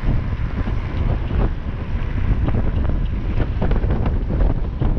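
Heavy wind buffeting on the microphone of a camera carried by a rider on a moving electric mountain bike: a loud, steady, low rumble.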